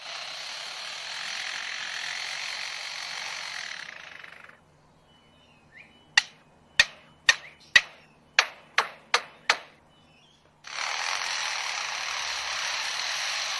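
A lyrebird mimicking construction work. It makes a harsh rushing noise for about four seconds, then eight sharp knocks in quick succession, then the rushing noise again near the end.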